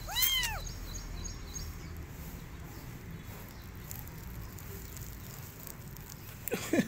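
White kitten meowing once, a high call that rises and falls, at the very start. Near the end comes a brief, lower rising sound.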